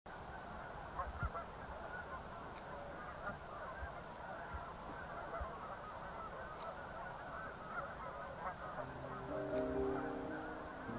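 A large flock of geese honking, many short calls overlapping in a continuous chatter. About nine seconds in, soft music with long held notes comes in underneath.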